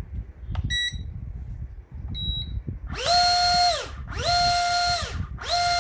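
Two short electronic beeps, then the RC jet's small electric motors whining up to speed, holding briefly and winding down, three times in a row, each run about a second long, as the throttle is blipped.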